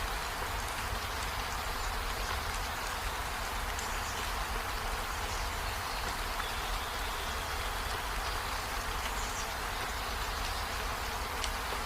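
Steady rain falling on trees and a window, an even hiss with a low rumble underneath and faint short high-pitched tones now and then.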